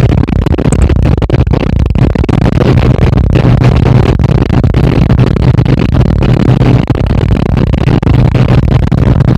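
Loud, steady noise from inside a moving bus: a constant low engine drone mixed with road and wind noise and frequent small rattles and knocks.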